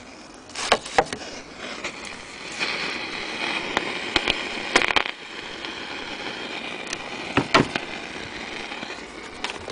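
Vintage Bush valve radio crackling and hissing with faint whistling interference, broken by several sharp clicks, as it is tuned between stations.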